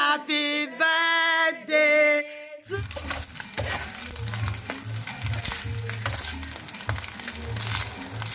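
A child singing for the first couple of seconds, then a sudden change to background music with a steady pulsing bass beat.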